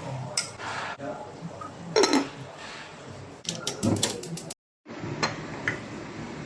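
Kitchen utensils clinking and knocking against dishes and pots, with a few sharp clinks and a quick run of them near the middle.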